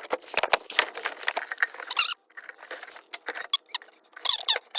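Plastic-sheathed electrical cable being handled and worked into a hole in a wall cavity: irregular scraping, rustling and clicking, with short squeaks about two seconds in and again near the end.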